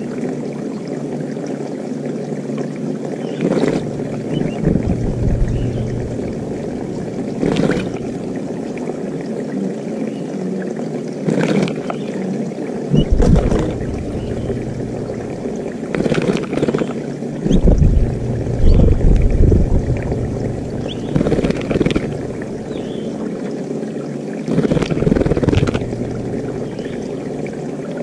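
A small wild bird bathing in water, splashing in short bouts every few seconds over steady background noise.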